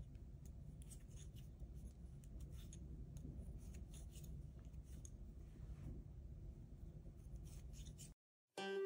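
Faint clicking and rustling of wooden knitting needles and yarn as knit stitches are worked, over a low room hum. It cuts to silence about eight seconds in, and plucked guitar music starts just after.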